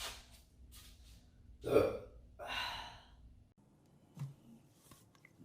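A woman's short, breathy throat sounds: a brief throaty burst about two seconds in, then a breathy exhale.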